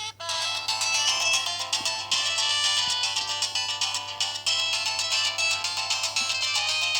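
Samsung SGH-X210 mobile phone playing a polyphonic ringtone melody, several notes sounding at once, starting just as a short break ends.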